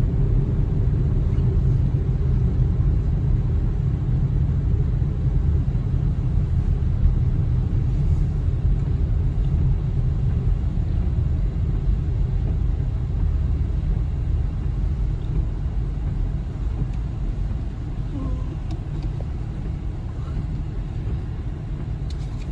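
Steady low vehicle rumble, heavy in the bass and with no distinct engine note, easing slightly toward the end.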